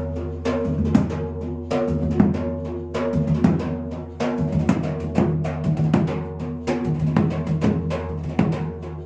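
A dhola (two-headed barrel drum) played in a rapid, even run of strikes, being sound-checked after repair, over a steady sustained tone.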